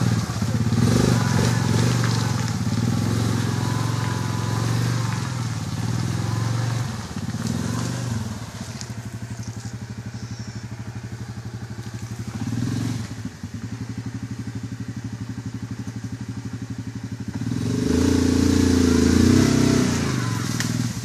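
Yamaha Grizzly 700 ATV's single-cylinder engine running and revving as it works through mud, its pitch rising and falling with the throttle. It fades about a third of the way in and grows loud again near the end.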